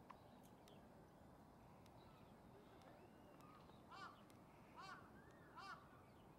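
A crow cawing three times, about a second apart, starting past the middle, over a faint steady hiss.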